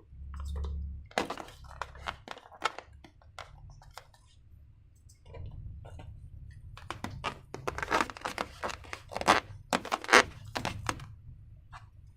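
Hands working slime and transparent balloons: a busy run of sharp sticky clicks and crackles, thickest in the second half, with low dull handling thumps underneath.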